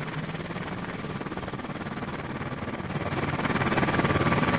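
Helicopter running on the ground: a steady, rapid pulsing with a low hum, getting louder about three seconds in.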